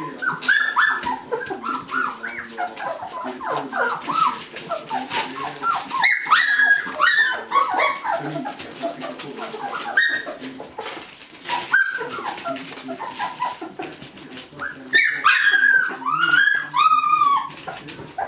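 A litter of three-week-old puppies whimpering and yipping: many short, high calls that overlap and rise and fall in pitch, coming thickest and loudest near the end.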